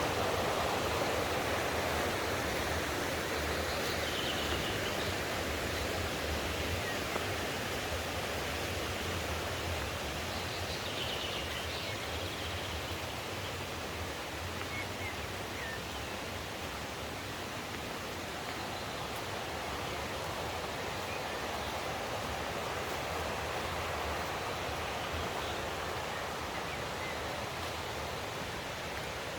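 Mountain stream rushing steadily over rocks, easing a little in level over the first half.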